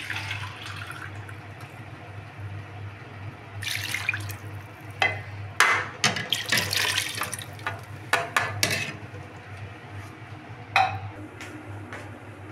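Chicken stock poured from a bowl into a steel pot of simmering chicken masala, splashing in several pours. A sharp knock comes near the end, over a steady low hum.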